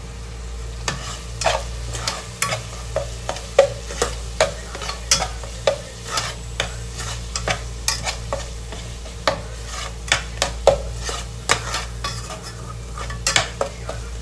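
Slotted steel spatula scraping and clinking irregularly against a metal pot, one or two knocks a second, as an onion-tomato spice masala is stirred and fried, with a light sizzle beneath.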